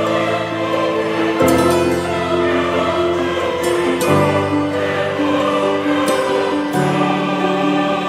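Background music of slow, sustained choral chords that change about every two and a half seconds.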